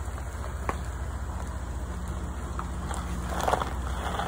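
Pickup truck engine running at a low, steady rumble as it backs a kayak trailer into the water, with a few light clicks and a short scuffle of noise about three and a half seconds in.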